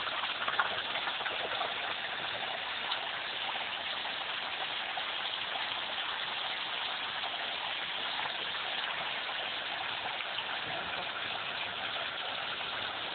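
Spring water gushing steadily from a pipe in a stone wall into a pool, a constant rushing splash, heard through a mobile phone's microphone.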